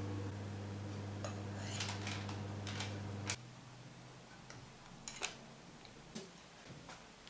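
Two metal teaspoons clinking against each other as they scoop stiff meringue and push it off onto baking paper: light, scattered clicks. A steady low hum runs under the first half and stops about three and a half seconds in.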